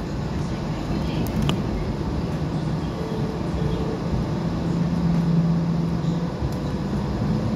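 Hong Kong Light Rail car running, a steady low rumble heard from inside the car, with a few light clicks near the start and a short steady hum about halfway through.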